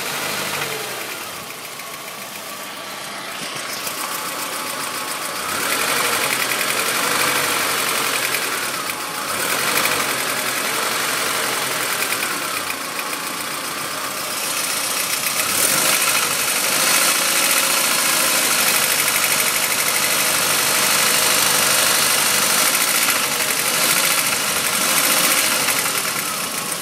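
Ford Sierra DOHC four-cylinder engine running with a knocking noise, the knock that the video sets out to show. The engine speed rises and falls several times, and the engine runs louder from about six seconds in.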